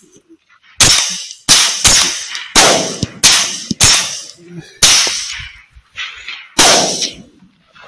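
Rapid rifle fire at a sounder of hogs, including a .300 Blackout: about nine shots in six seconds, each a sharp crack with a short tail, one of them fainter about six seconds in.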